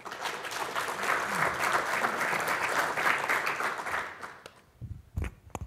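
Audience clapping for about four seconds, then fading out, followed by a few dull low thumps near the end.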